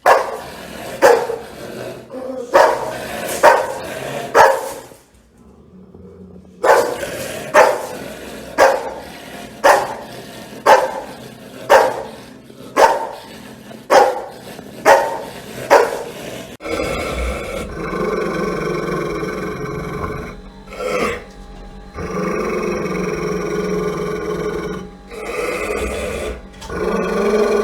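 Angry dog barking hard, sharp single barks at about one a second with a short break, then about two-thirds of the way in a long, steady snarling growl takes over.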